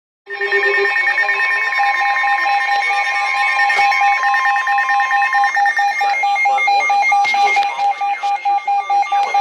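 Emergency Alert System alert tones heralding a flash flood warning: several steady electronic tones sounding together, one of them warbling rapidly. About six seconds in, the sound thins to a beeping tone.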